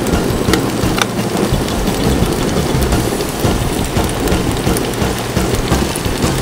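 Butter-and-wine sauce sizzling and bubbling steadily in a frying pan over a gas flame, with a few sharp pops.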